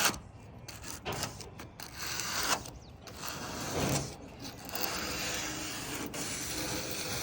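Plumber's aluminum-oxide emery cloth rubbed along the edge of a Cybertruck's stainless steel body panel, sanding the rough edge smooth. It comes in short uneven strokes at first, then settles into a steady rasping rub from about the middle.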